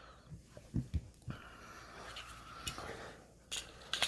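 Pistols being handled and set down on a tabletop: two dull thumps about a second in, then a few light clicks near the end.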